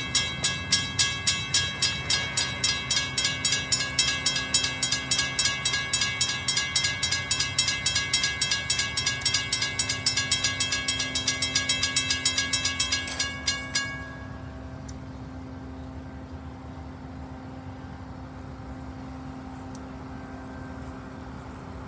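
Railroad grade-crossing warning bell ringing in rapid, evenly spaced strikes while the crossing gates lower. It cuts off abruptly about two-thirds of the way through, leaving a low steady background hum.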